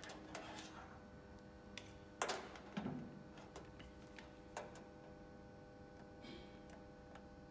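Scattered light clicks and knocks of a multimeter and its test probes being handled, the dial turned and the probe tips pushed into an inverter's terminal block, the loudest a little over two seconds in. A faint steady hum lies underneath.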